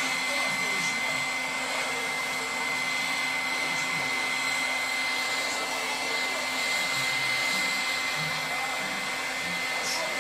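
Hand-held electric heat gun running steadily, blowing hot air onto a plastic car bumper to soften it for pushing out a dent. A steady rush of air with a thin high whine over it.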